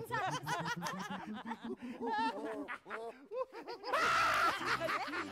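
Several actors laughing theatrically, overlapping in quick, rhythmic ha-ha-ha pulses. A louder, harsher outburst comes about four seconds in.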